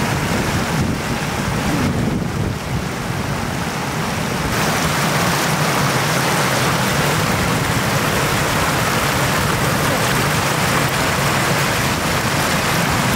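Floodwater rushing across a road and spilling over its edge in a steady roar of water, growing louder and brighter about four and a half seconds in.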